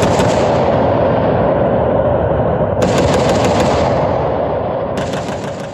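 Battle sound effect: rapid machine-gun fire over a continuous rumble, with fresh bursts of fire about three seconds in and again near the end, then fading away.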